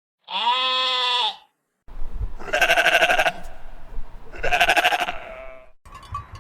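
Sheep bleating three times: one clean bleat, then two wavering bleats over background noise. Just before the end it cuts to a faint rapid ticking.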